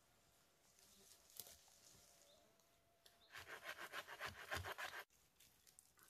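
Hand saw cutting through a wooden branch, with quick back-and-forth strokes about five a second that start about three seconds in and stop abruptly near the end.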